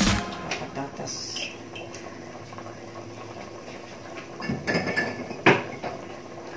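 Metal ladle and utensils clinking against a stainless steel cooking pot: a light touch about a second in, a cluster of clinks after four and a half seconds, and one sharp clink about five and a half seconds in.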